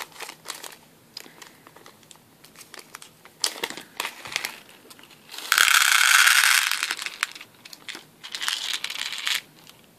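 Thin plastic zip-lock bag crinkling as it is handled and opened, then a dense rattle of small glass pearl beads pouring into a plastic tray, starting about five and a half seconds in and lasting over a second, with a second, shorter pour near the end.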